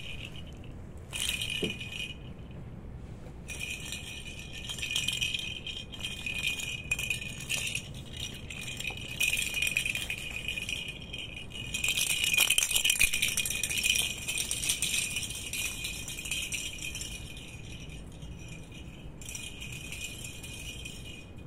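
Small bell inside a plastic cat-toy ball jingling and rattling as kittens bat it and it rolls over stone tiles. It starts about a second in, stops briefly, is loudest about halfway through and stops near the end.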